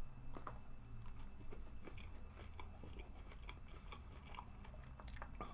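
Faint chewing and nibbling of sushi: scattered soft clicks and small crunches, close to the microphone.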